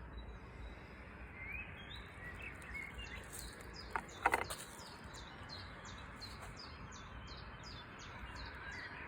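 A small bird chirping over and over in short, evenly spaced calls, over a faint steady background rumble. Two sharp clicks come about four seconds in.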